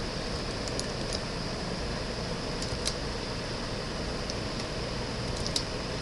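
Steady background hiss of room noise, with a few faint, sharp clicks scattered through it.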